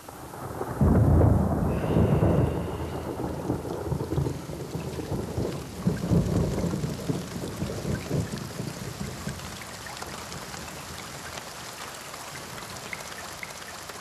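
Thunderstorm: steady rain with deep rolls of thunder, the loudest about a second in and another around six seconds, dying away into rain alone.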